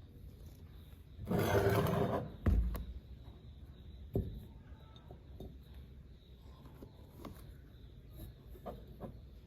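Snacks and their containers being handled: a short rustling, rattling burst about a second and a half in, then a knock, with a few lighter clicks and taps.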